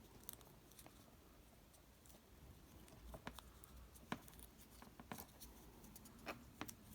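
Faint handling sounds of PVC insulation tape being wound around a twisted wire splice: small crackles and a handful of sharp little clicks.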